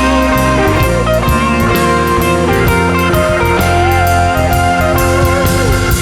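Blues-rock band playing an instrumental passage: a lead guitar holds and bends notes over bass and a drum kit with regular cymbal strokes.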